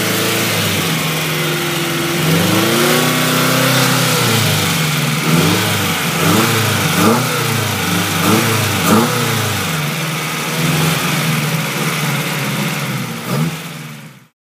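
1999 Acura Integra four-cylinder engine, with an open cone air filter, idling and being revved: one longer rev about two seconds in, then a quick run of short blips, settling back to idle, with one last blip just before the sound cuts off.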